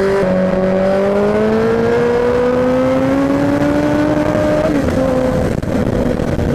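Suzuki GSX-R sportbike's inline-four engine pulling hard at full throttle, its pitch rising steadily through the gear, with a brief break just after the start and a drop in pitch near the end. Wind rush runs underneath.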